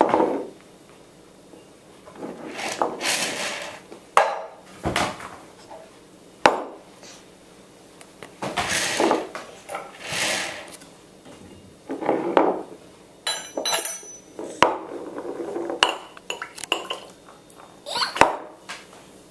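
A glass jar and drinking glasses knocked and set down on a wooden table, giving a series of separate sharp clinks and knocks, with breathy rustling noises in between.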